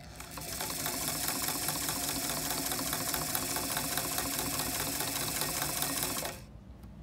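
A 1956 Singer Model 66-16 sewing machine, driven by its belt-driven electric motor, sewing through fabric on a long stitch length. It runs steadily with a rapid, even needle clatter, then stops abruptly about six seconds in.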